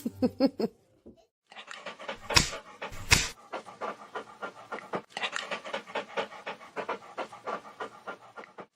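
A dog panting fast and steadily in quick, even breaths, with two loud thumps about two and a half and three seconds in.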